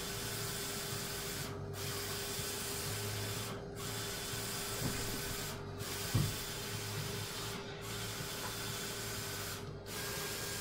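Roland wide-format inkjet printer printing, its print-head carriage sweeping back and forth over vinyl: a steady whirring hiss with a low hum beneath, broken by a short pause about every two seconds as the carriage reverses. A single thump about six seconds in.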